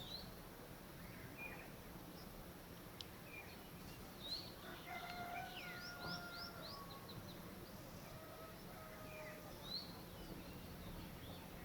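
Several songbirds singing at once: a quick run of high downslurred notes about halfway through, a few short level whistles, and scattered single chips, over a steady background hiss.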